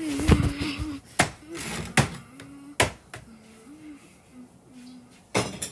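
A voice humming a low, wavering, wordless tune on a home voice-memo recording, broken by a few sharp taps or knocks.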